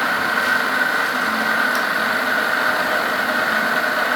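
Cylinder boring machine running steadily as it bores out a motorcycle cylinder, a constant mechanical hum with a steady high whine.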